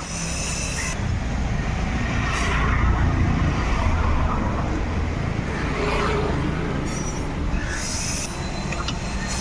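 Compressed air blown in short hissing bursts to clean a car's rear drum brake parts, over a steady low rumble of workshop noise.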